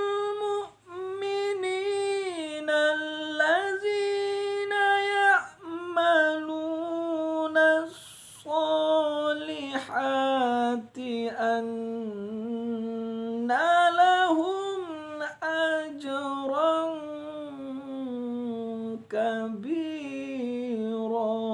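Melodic Quran recitation (tilawah) by a single unaccompanied voice, in long held and ornamented phrases with short pauses for breath. The pitch steps down gradually, ending on a low sustained note.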